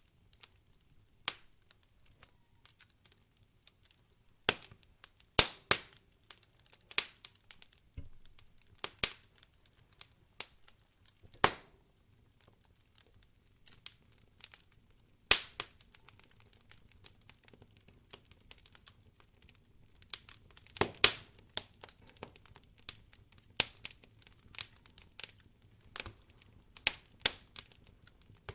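Campfire of burning firewood crackling, with irregular sharp pops and snaps, a few much louder than the rest.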